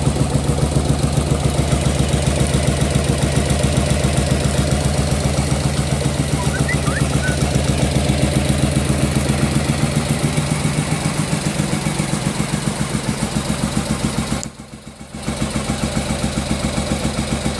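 Yamaha Virago 1100's V-twin engine running steadily at low revs through its mufflers, with an even, rapid exhaust beat. The level drops briefly about fifteen seconds in, then the same beat returns.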